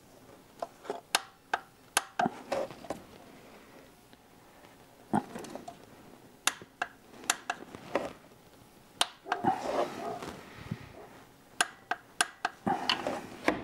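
Scattered sharp clicks and clinks of a 10 mm socket and torque wrench on metal as the new oil filter housing's bolts are found by feel and torqued down, about one or two clicks a second and irregular.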